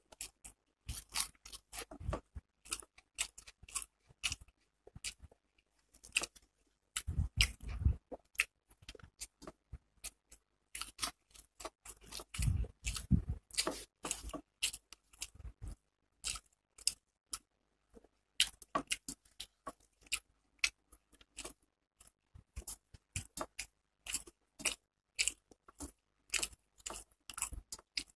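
Close-miked eating by hand: chewing and wet mouth clicks, with fingers working rice and fish on a steel plate, in a dense, irregular run of short clicks. A few deeper, heavier bursts come about a quarter of the way through and again near the middle.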